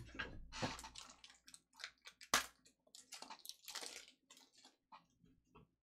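Irregular crinkling rustles and small clicks of trading cards and their packaging being handled, busy for about four seconds and then thinning out.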